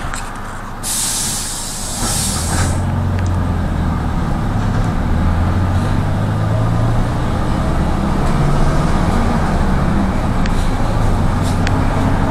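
Inside a route minibus: a loud hiss about a second in, then the engine pulls away, its drone rising in pitch several times as it accelerates through the gears.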